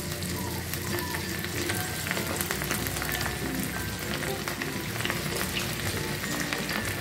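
Steady crackling sizzle of batter-coated chicken strips deep-frying in hot oil in a small saucepan, while fresh pieces are lowered into the oil with tongs.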